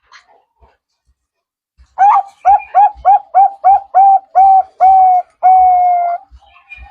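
Zebra dove (perkutut) singing: after about two seconds, a run of about ten short coos that lengthen toward the end into one long, slightly falling coo.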